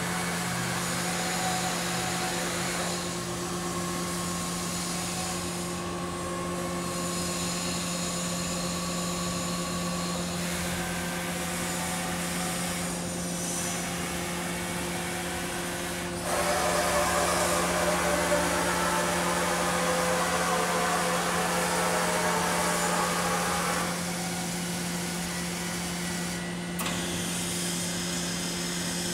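Kuraki KBT-11WA CNC horizontal boring mill running a program: a steady machine hum with whining drive tones as the axes travel and the rotary table turns. It grows louder for several seconds about halfway through as one motion gives way to another.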